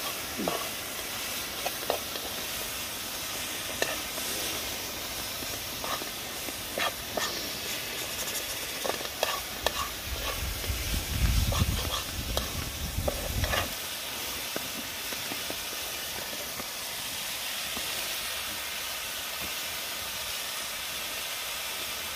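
Food sizzling in a pan over a wood fire while a utensil stirs greens and meat, with scrapes and clicks against the pan. A low rumble comes in briefly about halfway through; after that only the steady sizzle continues.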